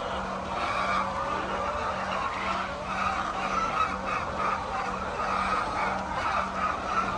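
A large flock of poultry calling all at once, a dense, unbroken din of overlapping squawks and clucks, over a steady low hum.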